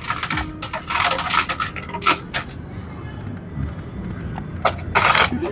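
Quarters clinking and clattering in a coin pusher machine, in several short bursts of metallic clicks.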